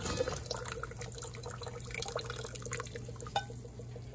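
Hot brewed tea poured in a stream from a pot into a plastic pitcher over sugar, splashing and trickling, with a brief knock about three and a half seconds in.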